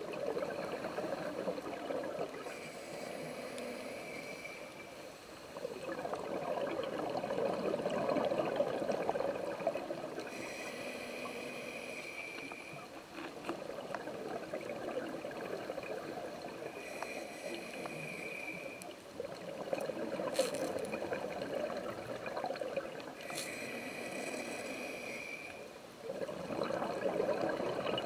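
A scuba diver breathing through a regulator underwater. A hiss on each inhale alternates with a rush of exhaled bubbles, in a slow cycle of about one breath every six seconds.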